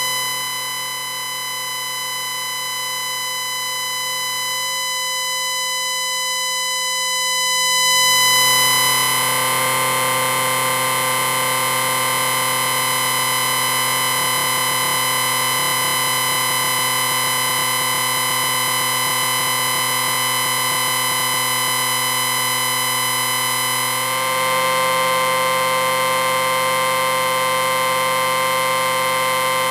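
Electric ringing sound effect: a continuous, steady buzzing ring made of several held tones. It gets louder and harsher about eight seconds in, and its lowest tone shifts near the end.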